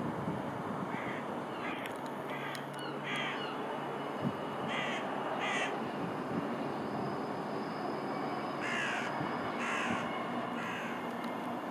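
A bird gives harsh calls, about one a second, in three short series. Under them runs a steady, distant rumble from a Voyager diesel multiple unit crossing the viaduct.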